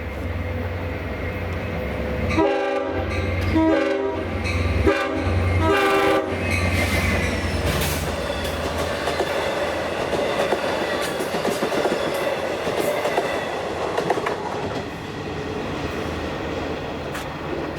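Long Island Rail Road train sounding its horn in four blasts, long, long, short, long, the grade-crossing signal, then running past with a steady rumble and clicking wheels.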